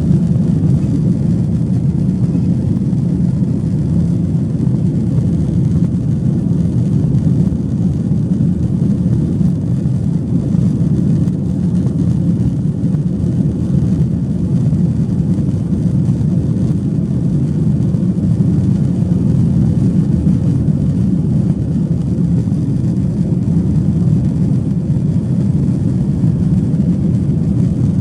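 Steady, even rumble inside the cabin of a Boeing 737-800: its CFM56-7B jet engines and the airflow around the fuselage, with no rise or fall in level.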